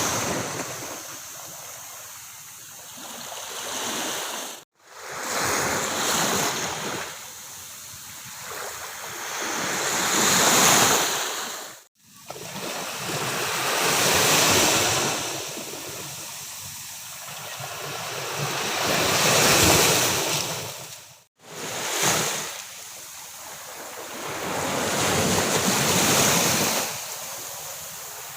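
Sea waves breaking and washing up on a beach, the surf rising and falling in a swell every four to six seconds. The sound cuts to silence for an instant three times.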